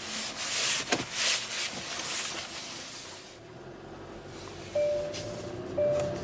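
2016 Hyundai Sonata's four-cylinder engine running at low speed, heard from inside the cabin, with a few short bursts of noise in the first two seconds. About five seconds in, a dashboard warning chime starts, a single tone repeating about once a second.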